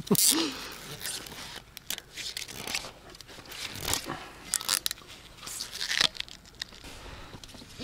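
Short, irregular bursts of crunching and scraping handling noise, spaced about a second apart, as hardware is worked by hand.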